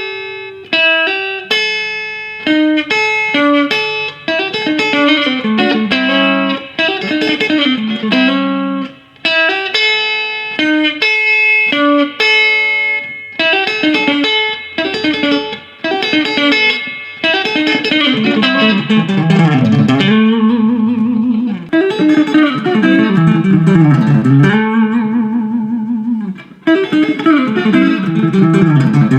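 Electric guitar playing a fast country chicken-picking lick with banjo rolls, plucked with pick and fingers: quick runs of separate notes in several phrases with short breaks between them.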